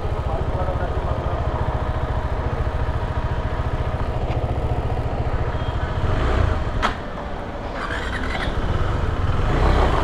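KTM 390 Adventure's single-cylinder engine running steadily at low revs, then getting louder from about six seconds in as the bike moves off, with a sharp click near seven seconds.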